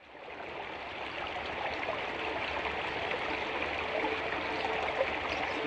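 Steady rushing of running water, like a stream, fading in over the first second and then holding level.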